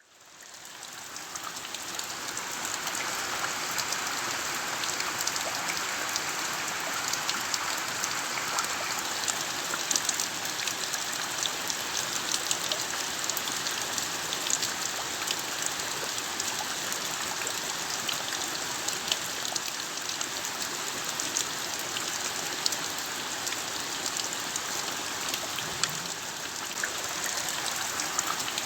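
Steady rain falling, a dense hiss with many small sharp drop ticks, fading in over the first couple of seconds.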